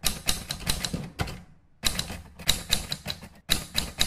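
Typewriter key-clicking sound effect, rapid clicks about five a second in runs, broken by a short pause about a second and a half in.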